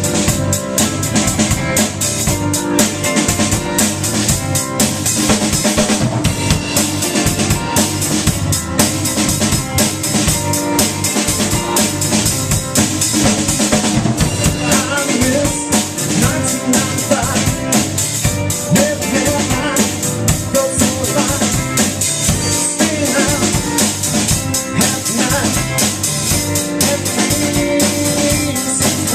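Live band playing an instrumental intro, with a drum kit (bass drum, snare and rimshots) keeping a steady beat under sustained instrument notes.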